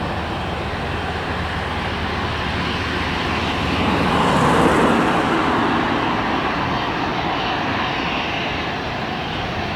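Boeing 787-9 Dreamliner's jet engines, a steady loud rush that swells to a peak about halfway through as the airliner passes, then eases off a little.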